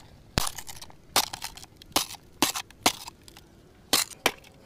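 A stone striking a Royal Enfield Bullet's round rear-view mirror housing, breaking it open. About seven sharp knocks come at uneven intervals.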